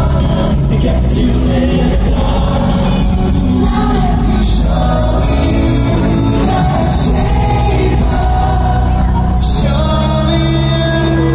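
Live pop music in an arena: a male vocal group singing over loud amplified backing music.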